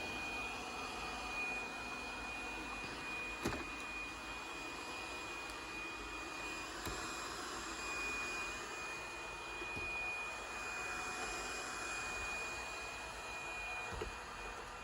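Robot vacuum cleaner running: a steady whir with a constant high-pitched whine, and a few brief knocks, the sharpest about three and a half seconds in.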